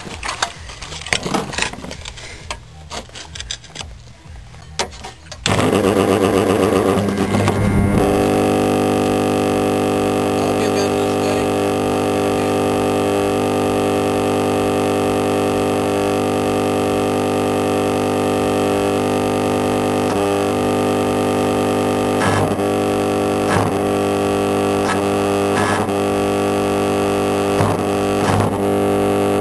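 Electric arc welding machine switched on about five seconds in and humming loudly and steadily on the mains, broken by a few brief clicks and dips in the last third. Before it starts there are scattered clicks and handling noises.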